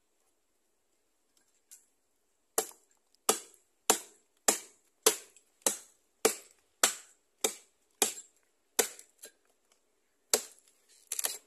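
Chopping into a rotten log: about a dozen sharp blows at a steady beat, a little over half a second apart, beginning about two and a half seconds in, with a quick flurry of smaller strikes near the end.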